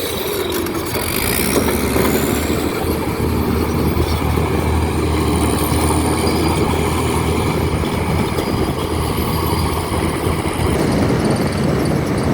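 Heavy diesel engine of a bulldozer running steadily, with a strong low drone and a faint high whine above it.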